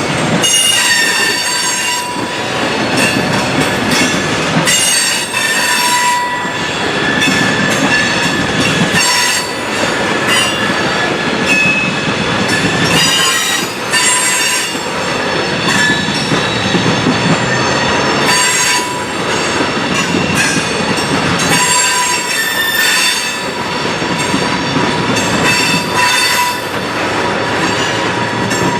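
Freight cars of a mixed freight train rolling past, steel wheels squealing on and off against the rails, with clatter from the wheels and cars.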